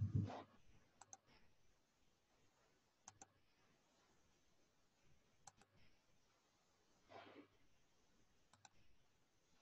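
Faint computer mouse clicks over quiet room tone, four quick double clicks spaced two to three seconds apart. A soft puff of noise at the very start is the loudest sound, with a weaker one about seven seconds in.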